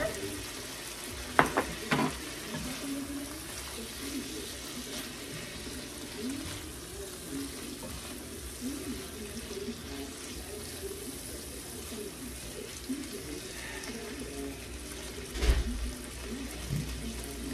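Diced chicken breast sizzling steadily in oil and butter in a frying pan, stirred with a plastic spatula. There are two sharp clicks about a second and a half and two seconds in, and a dull thump near the end.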